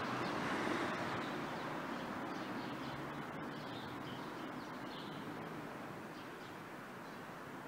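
Street ambience: a steady hiss of traffic that slowly fades, with faint bird chirps over it.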